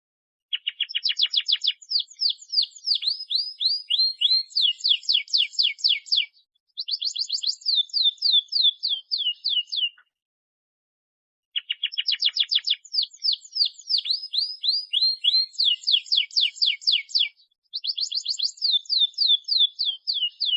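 Domestic canary singing in long phrases of fast repeated trill notes and rolls. There are two songs of about ten seconds each, with a short pause of about a second and a half between them.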